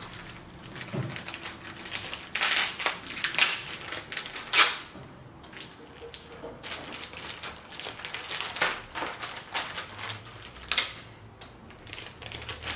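Clear plastic packaging bags crinkling as they are picked up and handled, in irregular bursts.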